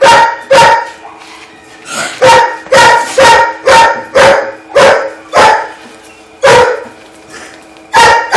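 Kennelled shelter dog barking loudly and repeatedly, about two barks a second with a couple of short pauses.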